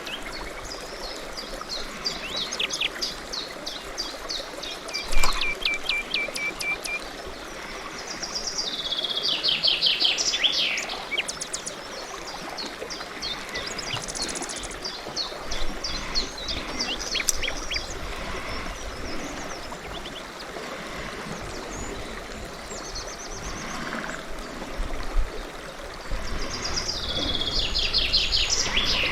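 Songbirds singing, short repeated trilled phrases one after another over a steady background hiss. A single sharp knock about five seconds in, and a low rumble comes in near the end.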